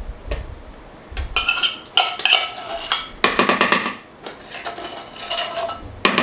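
Condensed cream of chicken soup being emptied from its can into a bowl: a metal utensil clinks and scrapes against the can and bowl in an irregular series of ringing clinks, with a quick cluster of strikes about three seconds in.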